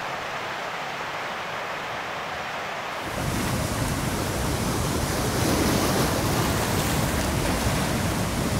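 A soft, steady rush of distant flowing water, then, after a sudden change about three seconds in, louder wind-driven waves splashing and breaking on a rocky lake shore, with wind.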